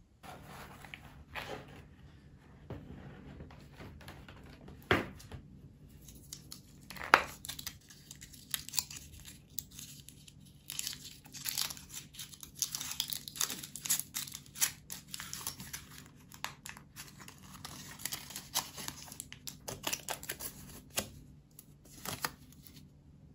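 Paper or wrapping being torn open and crinkled by hand: a steady run of rustles, small rips and clicks, with sharper tears about five and seven seconds in.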